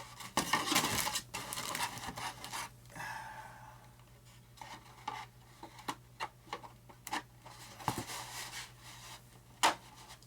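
Model airplane parts being handled and pressed into place against the wing: scattered rubbing and scraping with light clicks and taps throughout.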